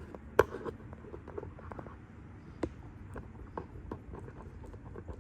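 Light, irregular clicks and taps of T-bolts being handled and fitted into the back of a rear axle housing, with one sharper knock about half a second in.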